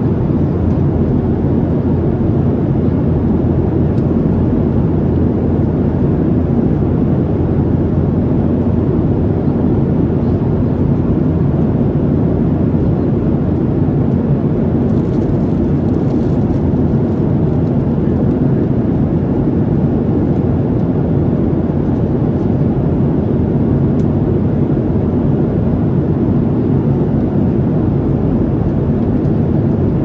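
Steady low rumble and rush inside the cabin of a Boeing 737-700 in flight: its CFM56-7B turbofan engines and the airflow over the fuselage, heard as an even noise with no change in level.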